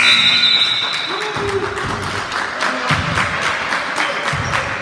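Gym scoreboard horn sounding the end of the period, cutting off about half a second in; after it, a run of quick sharp claps and taps.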